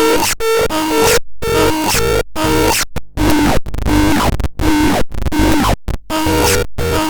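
Synthesizer playing a choppy pattern of short notes that alternate between a few pitches, with a noisy, gritty tone. It cuts off dead to silence several times between phrases.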